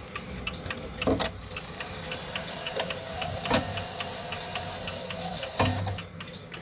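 Mechanical wall clock ticking while its striking train runs with a steady whir, the hammer hitting the gong rod three times with a short, dull 'dunk' instead of a ringing note: the hammer is sitting on the rod and damping it.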